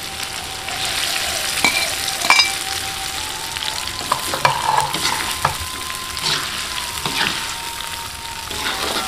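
Shrimp balado frying in chili paste in a pan: a steady sizzle, with a spatula stirring and knocking against the pan every second or so. A faint thin steady tone runs underneath and shifts in pitch a couple of times.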